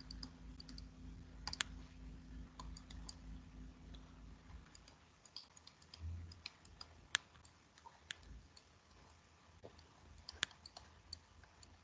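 Faint, irregular clicks and taps of a stylus on a tablet screen while handwriting, over a low hum that stops a few seconds in.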